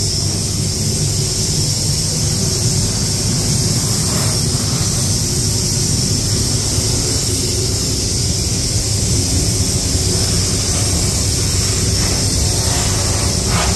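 Steady hiss of compressed air from an anti-static blow gun being passed over primed car panels, over the low steady rumble of the spray booth's airflow.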